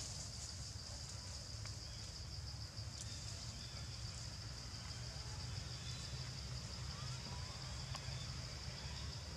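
Steady, high-pitched insect chorus with a quick pulse, over a low rumble and a few faint clicks.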